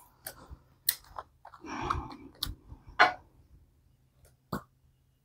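Scattered clicks and light knocks from handling a glass attar bottle and its cardboard box, with a short rustling scrape about two seconds in, as the bottle's cap is gripped and unscrewed.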